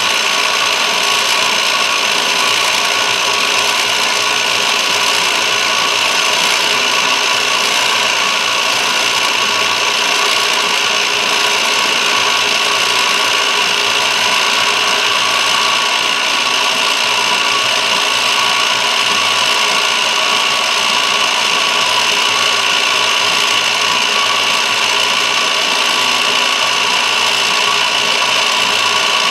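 Milling machine facing a copper bar with a carbide face mill: a steady whine from the spinning cutter over a continuous scraping hiss as it shaves the copper.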